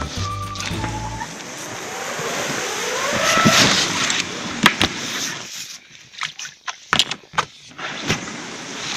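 Inflatable PVC boat being dragged through tall grass and brush: a rustling scrape of the hull, with a squeak rising in pitch around three seconds in, then a run of sharp knocks and clicks. A short piece of music ends in the first second.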